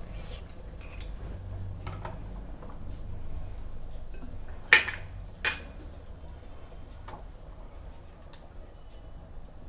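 Chicken curry simmering in a steel kadhai on a gas burner: a low steady rumble with a few scattered pops and clicks, the two sharpest about halfway through.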